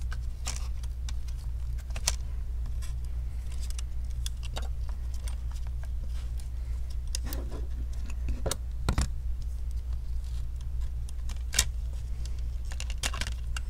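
Scattered small clicks and taps of laptop internals being handled as the motherboard and its cables are worked loose, over a steady low hum.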